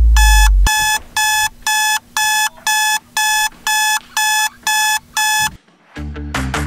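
Phone alarm beeping about twice a second, each beep a bright electronic tone, stopping about five and a half seconds in. A deep low drone underneath cuts off under a second in, and music with a beat starts near the end.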